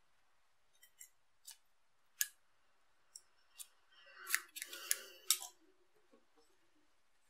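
Scissors snipping yarn: a few light isolated clicks, then a quick run of louder snips from about four to five and a half seconds in, over soft rustling of the yarn being handled.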